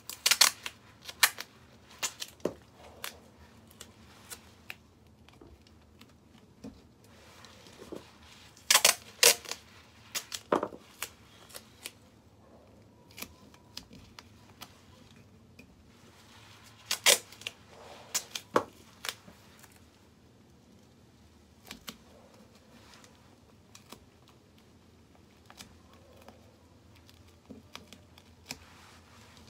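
Scattered sharp clicks and taps from gloved hands handling metal paint cans and a plastic mixing cup on a workbench. They come in three bunches: at the start, about nine seconds in, and about seventeen seconds in.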